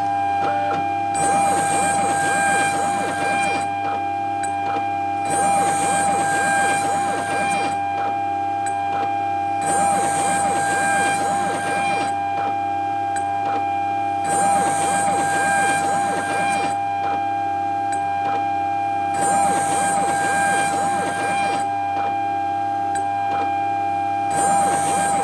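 CNC machine milling aluminium: the spindle whines at a steady pitch while the bit cuts in repeated passes. A higher, hissing cutting noise comes in about every four and a half seconds and lasts around two seconds each time.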